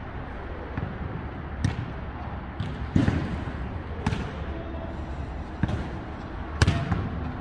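A jokgu ball being kicked and bouncing on the court in a rally. There are about five sharp smacks, roughly a second apart, and the loudest comes near the end.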